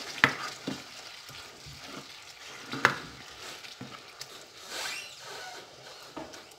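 A spatula stirs thick, simmering tomato masala in a nonstick pan, scraping through the sauce over a low sizzle, with two sharp knocks against the pan, one at the very start and one about three seconds in.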